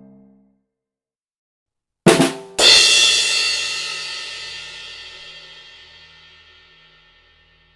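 Comedy sound effect: a quick drum hit followed about half a second later by a cymbal crash that rings out and fades over several seconds.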